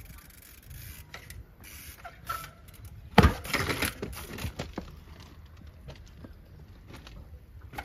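A trials mountain bike knocking against a steel railway rail: one sharp knock about three seconds in, then a second or so of clattering and scraping, with smaller ticks before it and near the end.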